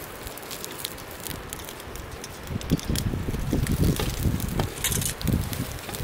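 Campfire crackling with scattered sharp snaps, while wind gusts rumble on the microphone from about halfway through.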